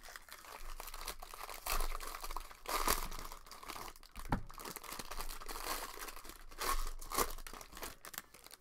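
Foil trading-card pack wrapper being torn open and crinkled by hand as the cards are pulled out, a continuous crackle with several louder swells.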